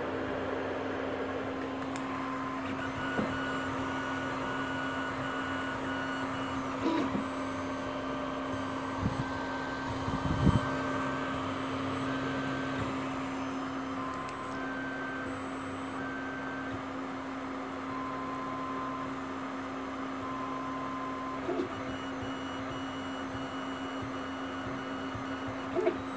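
Creality CR-10S 3D printer running a print: its oversized part-cooling fan gives a steady hum with a low tone, while the stepper motors whine in short tones at several pitches that start, stop and change as the print head moves. A few light knocks come through, the loudest about ten seconds in.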